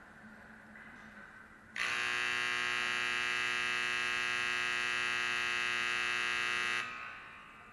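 Ice rink scoreboard buzzer sounding one long, steady, loud blast of about five seconds that starts abruptly nearly two seconds in, then stops and echoes briefly in the rink.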